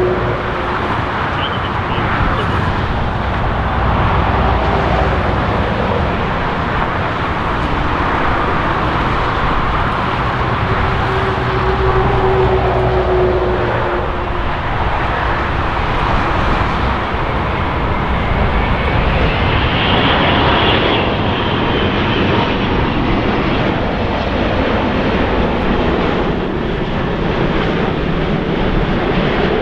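Jet engine noise from an Airbus A380's four turbofans as it comes in to land: a loud, steady rumble with a whining tone that rises and then falls about two-thirds of the way through.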